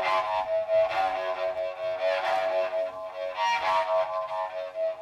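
Found-object cello fitted with a metal horn, bowed in rough, rasping strokes about once a second over a steady, wavering tone.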